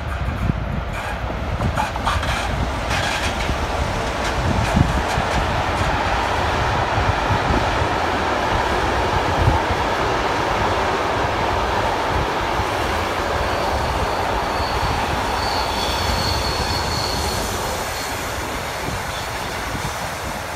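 Long intermodal freight train rolling past on a curve, with a steady rumble and rattle of container wagons over the rails. A faint high wheel squeal comes through about three-quarters of the way in. Wind buffets the microphone throughout.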